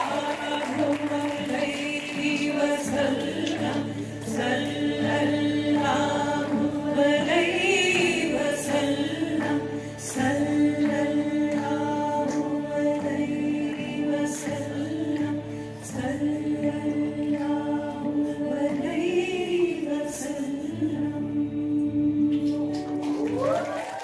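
Live Indian ensemble music: voices singing together in long held notes over harmonium, acoustic guitar and hand drums (tabla and cajon). The song stops near the end.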